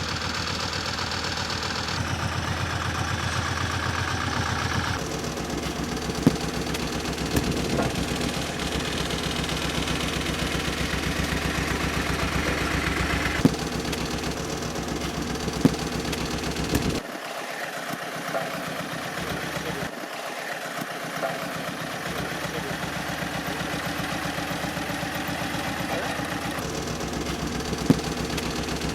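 Road roller engine running steadily through several abrupt edit cuts, with a handful of short sharp cracks as fruit bursts under the roller's drum.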